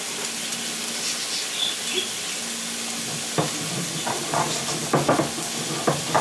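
Volcanic-stone molcajete and pestle grinding cumin, black pepper and coarse salt: short rough scraping, knocking strokes start about halfway through and come several times a second. Under them a steady sizzle of food cooking on the stove.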